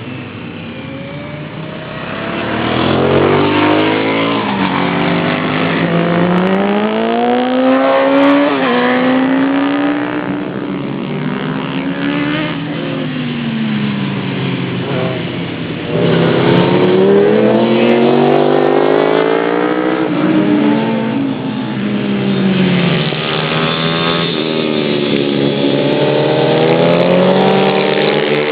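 Single-cylinder four-stroke YX pit bike engine revving hard and easing off again and again, its pitch climbing and falling as the bike rides the track. It gets louder about three seconds in and again after about sixteen seconds.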